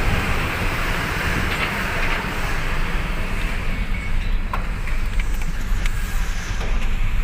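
Vehicles driving off a ferry: a steady low rumble of engines and tyres, with a hiss that fades about halfway through and a few short, sharp clicks near the end.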